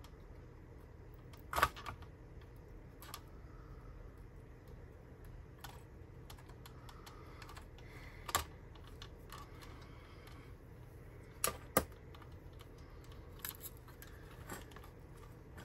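Scattered sharp clicks and taps of hand tools working on a power-supply circuit board, irregular and a few seconds apart, the loudest a pair of clicks close together about 11 to 12 seconds in. A low steady hum runs underneath.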